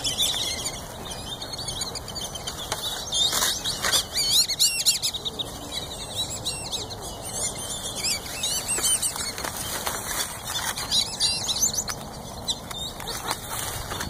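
Mixed flock of waterbirds (black-bellied whistling ducks, white ibises and gulls) calling, a continuous chatter of many high, wavering whistles and chirps overlapping one another.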